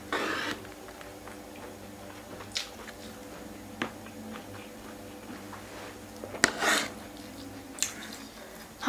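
A person eating with a metal fork and spoon: chewing a mouthful of stir-fried shrimp, with a short noisy bite near the start and a few sharp clicks of the cutlery on the tray. A faint steady hum runs underneath.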